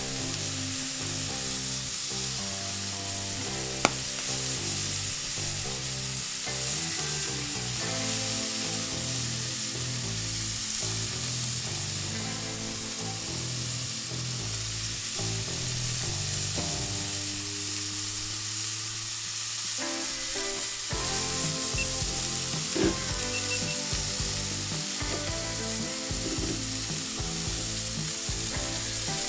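Ground beef patties and onions sizzling steadily on a hot, oiled cast iron griddle. Two sharp clicks stand out, about four seconds in and again past twenty seconds.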